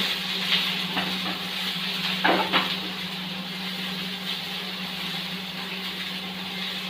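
Diced carrots, green beans and spring onions sizzling in hot oil in a flat pan while being sautéed, with a few scrapes and knocks of a spatula against the pan in the first three seconds, then steady sizzling. A steady low hum runs underneath.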